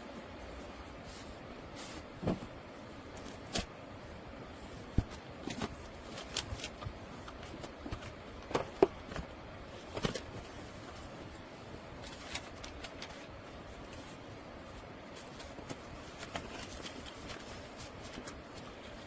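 Scattered light clicks, knocks and rustles of small objects being handled, over a steady low hiss. The sounds are busiest in the first ten seconds and sparser after.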